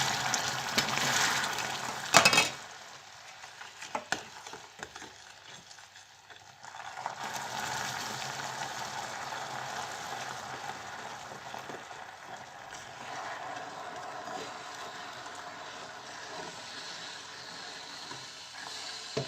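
Hot melted sugar (caramel) in a small saucepan sizzling and bubbling as water is poured into it gradually, with a spoon stirring. There is a sharp knock about two seconds in, a quieter spell, then a steady sizzle from about seven seconds on.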